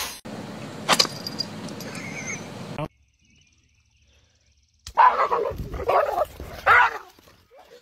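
A steady hiss with one sharp click cuts off after about three seconds. After a two-second silence, dogs bark in several quick bursts.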